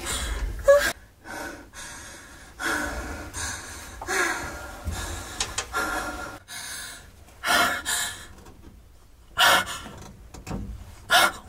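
A woman breathing hard and gasping in labour: a series of loud, deep breaths about a second or two apart, some with a slight groan in them.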